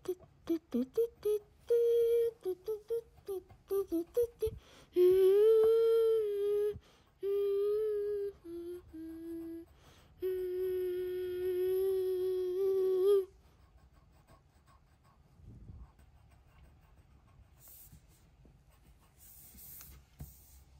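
A child humming a tune: short notes for the first few seconds, then long, wavering held notes, stopping about thirteen seconds in. After that only the faint scratching of a coloured pencil on paper.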